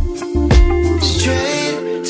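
Background pop music with a drum beat; the drum hits drop away about a second in as smoother sliding melodic lines take over.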